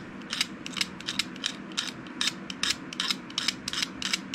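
Leftover glue and thread being scraped off the end of a fishing rod where the tip-top was pulled off, in quick short strokes, about four or five a second.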